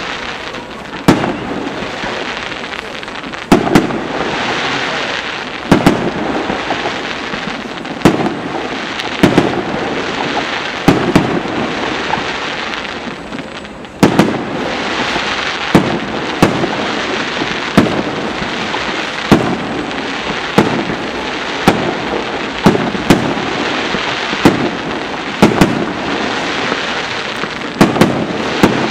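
Aerial firework shells bursting in a continuous barrage, a sharp bang about every second or two, over a steady hiss and crackle from the burning stars between the bangs.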